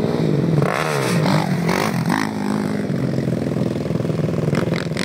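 Sport ATV (quad) engine revving up and down as it rides over dirt, then running at a steadier pitch, with a few short clatters near the end.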